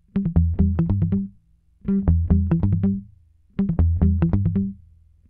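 Background music: three short phrases of quick plucked guitar notes over a low bass line, each phrase about a second long with a brief pause between them.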